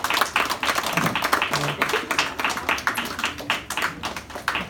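A group of children clapping, many quick claps overlapping, with voices underneath.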